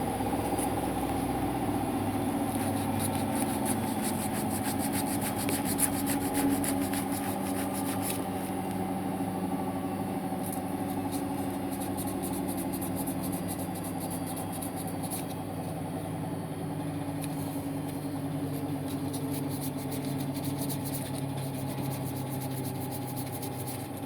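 A small electric motor running steadily, its hum drifting slightly in pitch, with light scratchy rubbing during the first several seconds.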